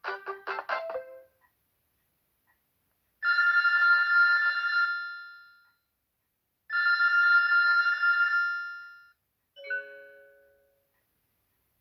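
BlackBerry 7100v ringtones playing through the phone's small speaker. A fast tune of short notes ends about a second in. Then a ring like an old telephone bell sounds twice, each ring about one and a half seconds and dying away. A short chime of a few notes follows near the end.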